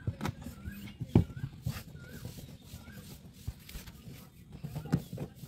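A few sharp handling knocks, the loudest about a second in, as a hand works at a plastic tank fitting and the camera is jostled. Behind them a short high chirp repeats about twice a second.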